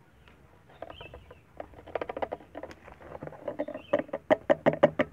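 Liquid glugging out of an upturned plastic bottle into a car's fuel filler neck, a quick run of gurgles and clicks that grows louder and faster toward the end.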